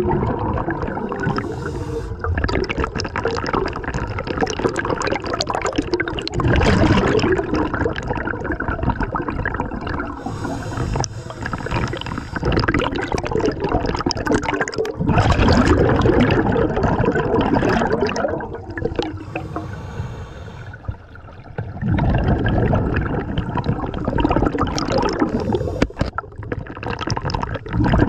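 Scuba diver breathing through a regulator underwater: long gurgling rushes of exhaled bubbles alternate with shorter hissing inhales, several breaths in a row.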